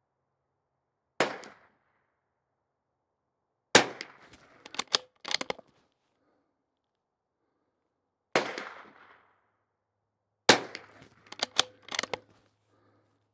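Bergara B14R bolt-action .22 rimfire rifle firing four sharp shots, spaced a few seconds apart. After the second and fourth shots comes a quick run of metallic clicks and clacks as the bolt is worked to chamber the next round.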